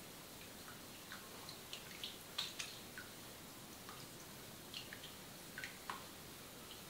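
Faint, irregular water drips and small wet clicks, about two a second, at a salon shampoo basin with wet hair.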